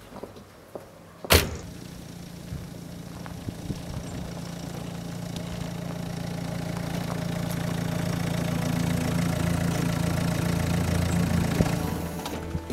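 A Renault Clio's door slams shut once about a second in. The car's engine then runs steadily, growing louder as the car comes closer, and falls away near the end.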